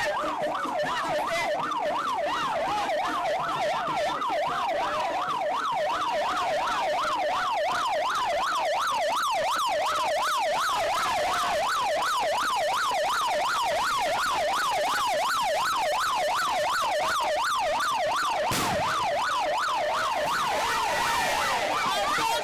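Vehicle siren on a fast yelp, its pitch sweeping up and down about four times a second, with one sharp knock about three-quarters of the way through and a change to a steadier tone near the end.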